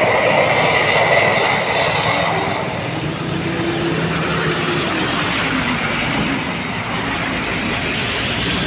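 Roadside traffic: the steady noise of vehicle engines running on the street, with a blue truck, motorcycles and motorized tricycles in view.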